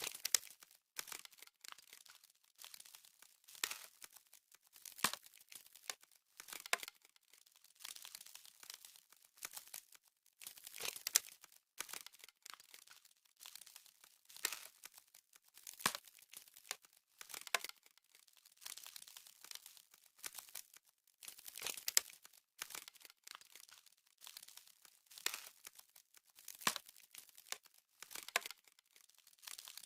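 Ice-frost sound effect: a continuous run of sharp, irregular crackles and crunches, like ice forming and spreading, coming in clusters about once a second.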